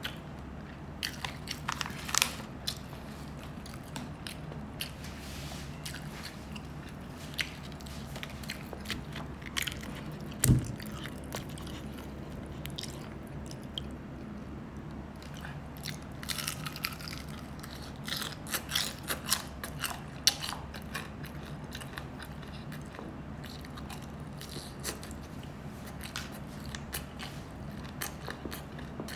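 A person biting and chewing crunchy food close to the microphone, with scattered crunches. One heavier thump comes about ten seconds in.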